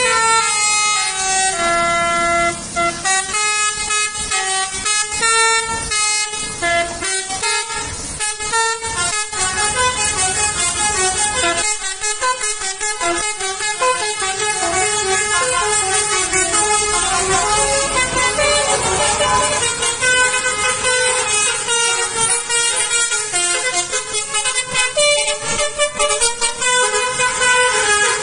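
Bus telolet horn (a Basuri V3 multi-tone air horn kit) playing a melody: several horn tones sound together and step from note to note almost without pause.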